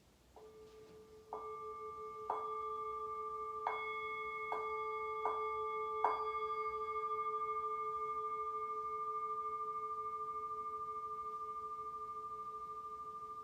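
Singing bowl struck about seven times over the first six seconds, each strike building up the tone, then left to ring on with a long, slow fade and a slight pulsing.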